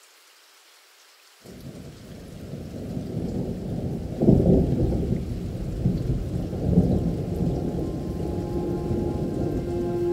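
Rolling thunder with rain from a soundtrack: it starts abruptly about a second and a half in, grows louder, and is loudest around four seconds in. Held musical tones come in near the end.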